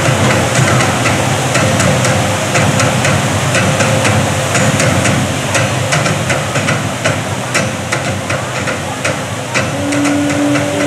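Water cascading down the Krakatau artificial volcano's waterfalls: a loud, steady rush flecked with many small splashing clicks. A steady low tone joins in near the end.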